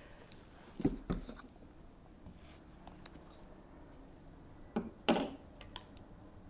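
Faint scraping and rustling as the MacBook Air box's wrapping is cut and worked open, with two brief louder scrapes, about a second in and about five seconds in.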